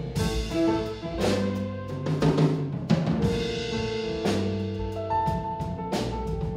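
Live jazz quartet playing: a saxophone holds long notes with vibrato over plucked double bass, with a drum kit striking cymbal and drum accents about once a second.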